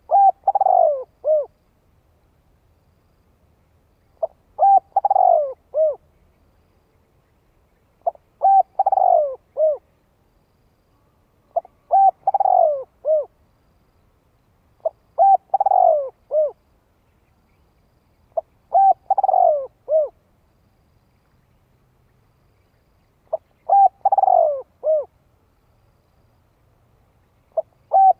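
Spotted dove cooing: a short phrase of several low, hooting coos, repeated about every three to four seconds, about eight times.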